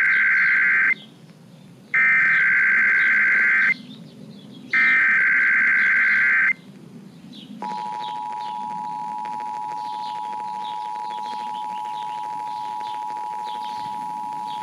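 Emergency Alert System SAME header: three bursts of digital data tones, each just under two seconds long with about a second between them, the first ending about a second in. About eight seconds in the steady two-tone EAS attention signal starts and holds, opening a Required Monthly Test.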